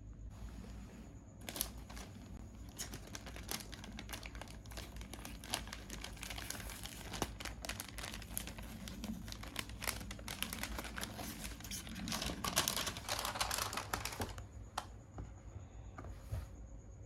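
Packaging being unwrapped by hand, crinkling and rustling with many small crackles; it is densest about twelve seconds in and stops a couple of seconds before the end.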